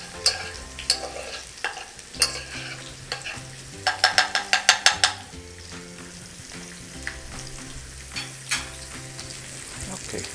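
Metal spoon stirring and scraping a soffritto of diced celery, carrot and onion sizzling in butter in an aluminium pot, with scattered clicks of the spoon against the pot. About four seconds in comes a quick run of about eight scrapes, then a lighter frying sizzle with only the odd click.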